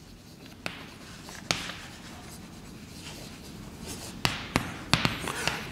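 Chalk writing on a blackboard: faint scratching, with sharp taps as the chalk strikes the board, a few scattered and several in quick succession near the end.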